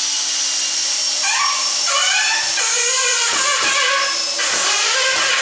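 Cordless drill driving a 3-inch screw into a 2x4 under load, running continuously with its pitch wavering from about a second in as the screw bites into the wood, then stopping abruptly at the end.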